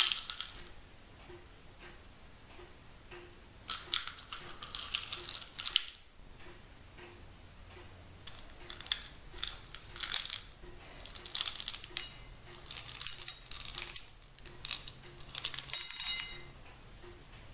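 Chocolate chips rattling in a small plastic cup and falling onto a ceramic plate, in several short spells of shaking with small clicks.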